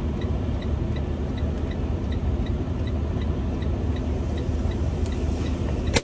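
Semi-truck diesel engine running steadily at idle, heard from inside the cab, with a faint even ticking of about five a second over it.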